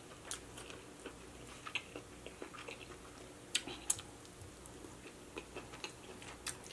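Close-miked eating: soft chewing and wet mouth clicks as king crab meat in cheese sauce is bitten and chewed, with two sharper clicks a little past halfway.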